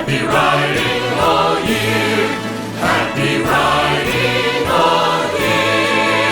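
Music: a choir holding sung notes over steady bass chords, the ending of a Christmas song.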